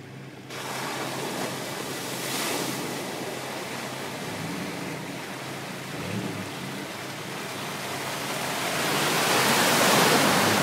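Wind rushing across the microphone, growing louder near the end. An off-road SUV's engine hums faintly beneath it as the vehicle drives along the muddy track.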